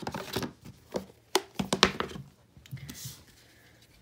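Hands handling a cardboard album box and its photocards: a run of light knocks and taps in the first two seconds, one of them louder, then a short rustling slide about three seconds in.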